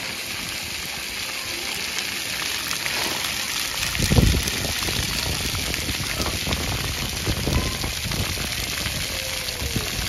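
Splash pad ground jets spraying arcs of water that fall onto wet concrete, a steady rain-like hiss. A brief louder rush about four seconds in.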